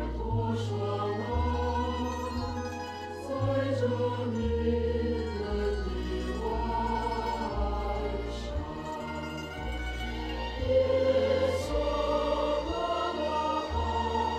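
Live band's opening music: slow, sustained chords over a deep bass line that changes note every second or two, with a few faint light hits.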